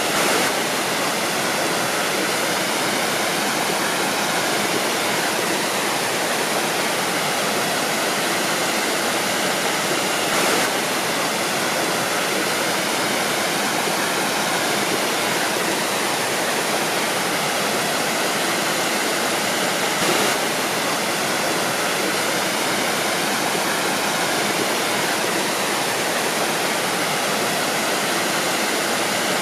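Waterfall: a steady, dense rush of falling water with no breaks.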